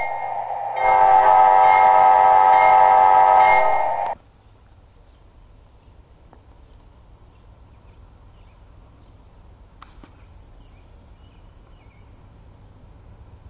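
Rumble of a train passing close by, then a locomotive air horn sounds a loud held chord of several tones for about three seconds and cuts off suddenly. Only faint outdoor background follows.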